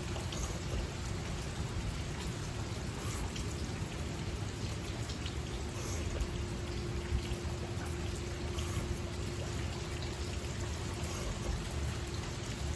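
Broadhead blade drawn lightly across a 325-grit Sharpal diamond stone in alternating passes to take off the burr: faint short scrapes every few seconds over a steady hiss.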